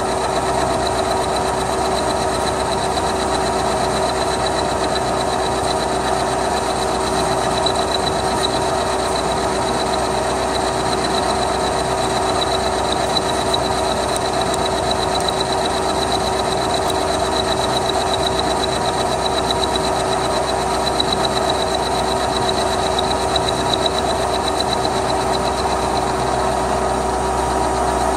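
Milling machine running with its end mill cutting a flat of a hex nut: a steady motor and spindle drone with a high cutting whine that fades out near the end.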